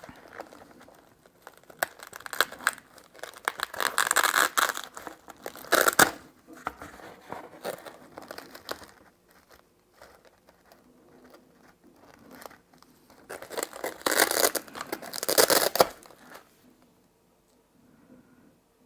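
Plastic crinkling and rustling as small parts or tools are rummaged through by hand, in two spells a few seconds apart, with a sharp clack about six seconds in.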